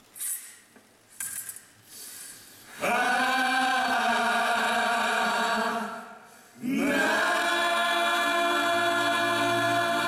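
Musical theatre cast singing together in chorus. After two brief noises, they hold one long sung note from about three seconds in, break off shortly, and hold a second long note from about seven seconds in.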